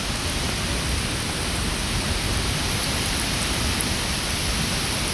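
Skógafoss waterfall, heard close up: a loud, steady rushing of falling water with no break or change.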